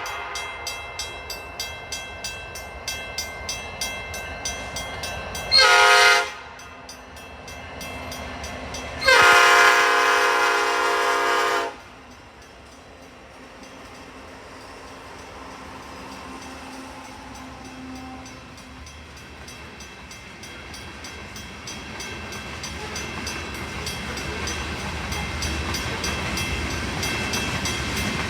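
Diesel freight locomotive's new cast Nathan P5 five-chime horn sounding for a grade crossing: a long blast cutting off, a short blast, then a long blast of nearly three seconds. Between blasts a crossing bell dings steadily, and after the horn the rumble of the approaching train grows louder.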